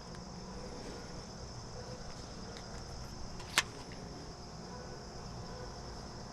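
Quiet steady background with a constant high-pitched whine like insects, and one sharp click about three and a half seconds in.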